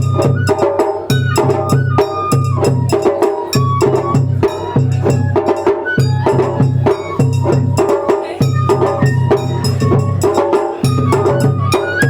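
Japanese festival hayashi music: drums and clacking percussion beating a fast, steady rhythm with a bamboo flute melody over it.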